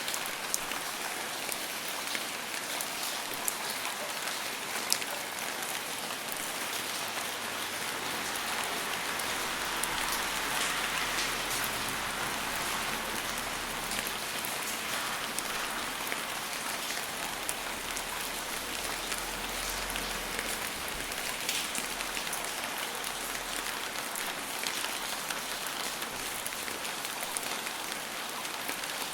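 Steady rain falling on a hard surface, an even hiss with individual drops ticking sharply now and then.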